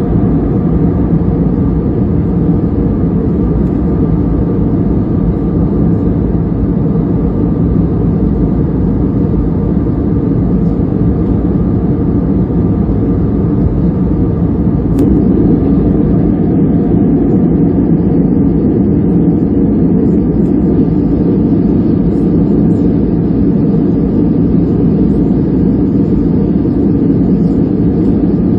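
Steady low rumble of an airliner's jet engines and rushing air, heard inside the passenger cabin, unchanging throughout.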